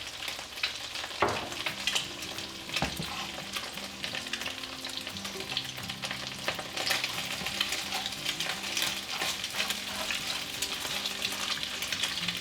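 Eggs scrambling and frying in hot oil in a pan: a steady crackling sizzle, with a utensil stirring through them and a few sharper clicks.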